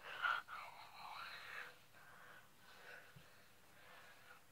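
Faint breathy, whispered vocal sounds from a person, louder in the first second and a half and then very soft.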